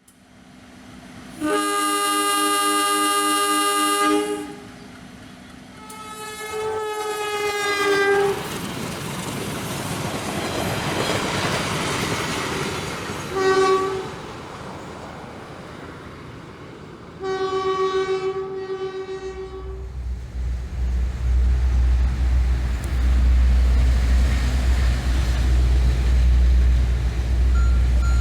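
Locomotive horns of Indonesian trains sounding the long Semboyan 35 signal several times: a long steady chord blast about a second and a half in, a second blast whose pitch drops as the train passes, a short toot, and another blast. A rumble of rolling train runs beneath, and about two-thirds of the way through a loud, deep rumble of a train passing close takes over.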